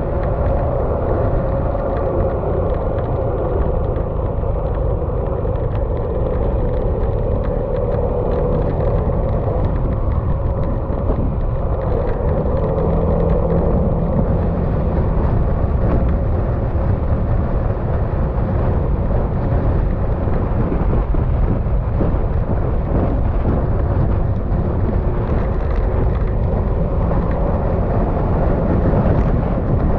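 Yamaha XMAX scooter's single-cylinder engine running steadily while cruising, mixed with wind and road noise.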